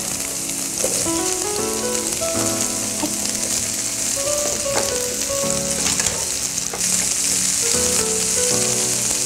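Chicken, carrot strips and komatsuna stems sizzling in a frying pan as they are stir-fried with chopsticks, with a few sharp clicks of the chopsticks against the pan. Soft background music plays.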